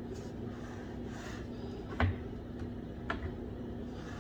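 Two knocks from the jig and workpiece being handled on the table saw: a sharp one about two seconds in and a lighter one about a second later, over a faint steady hum.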